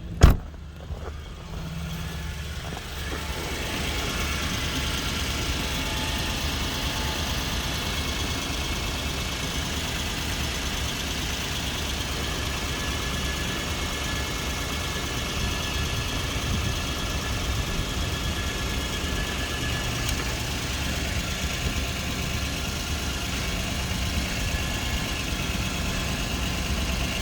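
Lexus GX 470's V8 engine idling steadily, with a steady rushing noise over it from a few seconds in. A single sharp knock comes just at the start.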